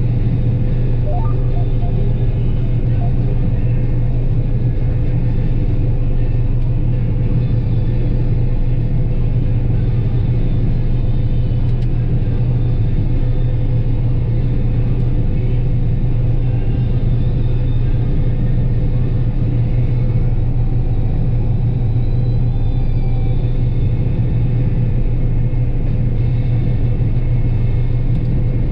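John Deere 9770 combine running steadily: a constant low drone with a steady higher hum above it.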